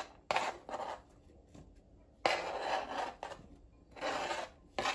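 Knife blade scraping chopped cabbage and cucumber across a plastic cutting board toward a bowl, in three scraping strokes with pauses between.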